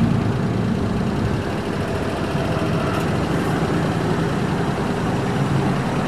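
Steady low rumble of a running vehicle engine with street traffic, coming in abruptly at the start.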